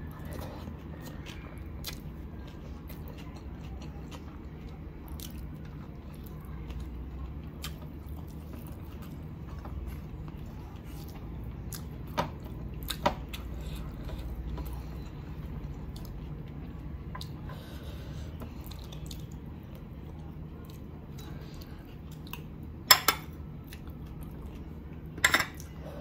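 Close-miked eating sounds: chewing and hands working biryani rice on a plate, over a steady low hum. A few sharp clinks stand out, two near the middle and two louder ones near the end, as a spoon scrapes and taps the glass bowl of chicken gravy.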